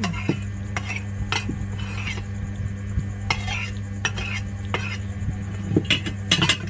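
A spoon scraping and clinking against a bowl in a string of short, irregular strokes, scooping up the last of a bowl of tahu campur.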